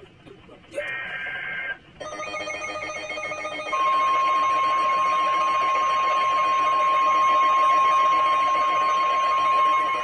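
Weather radio receivers on the Emergency Alert System: two short warbling two-tone data bursts, the SAME end-of-message code closing the previous alert, then about two seconds in the next alert sets the radios alarming, and from about four seconds the long, steady NOAA Weather Radio warning tone sounds loud and unbroken.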